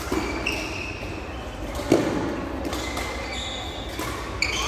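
Badminton rally in a sports hall: sharp racket strikes on the shuttlecock, the loudest about two seconds in, with short high-pitched squeaks of shoes on the court floor between them.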